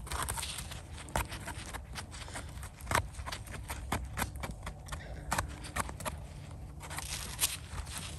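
Small knife scraping and cutting soil off a freshly picked bolete mushroom: a run of irregular short scrapes and sharp clicks.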